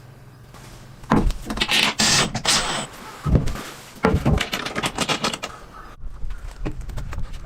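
Irregular knocks, clatters and scrapes of wood and tools being handled, loudest from about one to five seconds in, between runs of a power drill.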